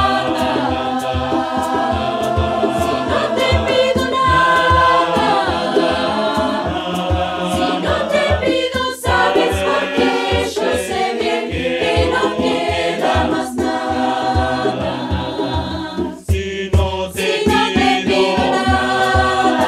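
Mixed choir singing a song in several parts, accompanied by hand-played conga drums keeping a steady beat. The singing and drumming break off briefly about sixteen seconds in.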